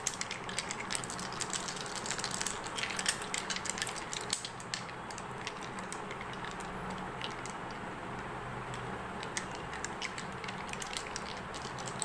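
Small dice rattling and clicking as they are shaken in cupped hands, the clicks thickest in the first half and sparser later.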